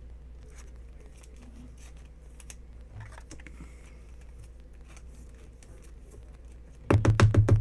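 Faint rustling and small clicks of a thin plastic card sleeve and rigid top loader as a trading card is slid into them. Near the end comes a short, loud, rapidly pulsing burst.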